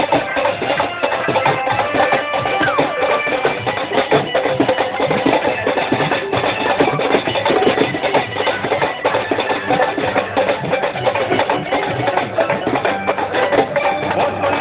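Loud music with busy drumming and percussion.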